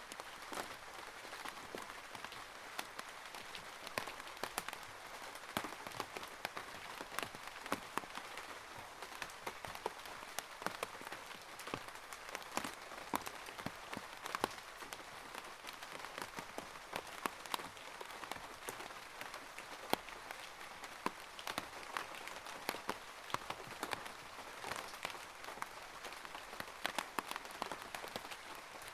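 Rainwater running through a rain gutter: a steady splashing hiss scattered with many irregular drips and ticks.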